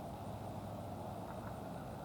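Steady background rumble of distant traffic, with a few faint short bird calls in the second half.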